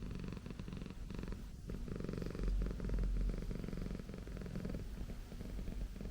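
A Persian cat purring steadily.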